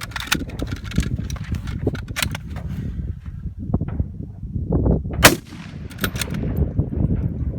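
Centrefire rifle shots fired at steel targets, spaced a second or more apart, the loudest a little past five seconds in, over a steady low rumble.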